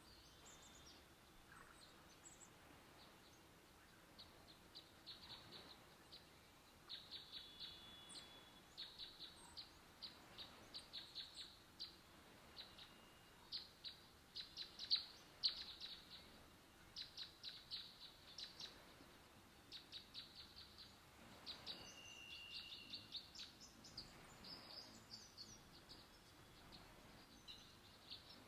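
Small birds chirping, faint: quick runs of short high chirps repeated over and over, with a couple of brief whistled notes.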